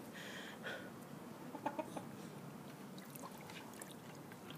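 Domestic hen giving a couple of short, soft clucks about one and a half seconds in, while being bathed in water.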